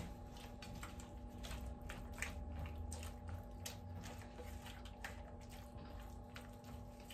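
A spatula stirring and scraping through sliced Maultaschen simmering in cream sauce in a pan, giving faint, irregular soft clicks and scrapes over a steady low hum.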